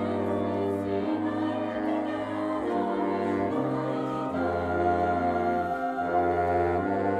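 School wind band playing a slow passage of held, full chords in woodwinds and brass over a low bass line, the chord changing every second or so.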